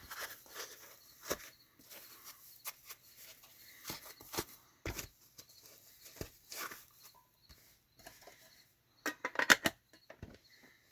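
Rustling and scattered small clicks and knocks as a diecast metal model truck and its packaging are handled, with a quick run of louder, sharp clicks about nine seconds in.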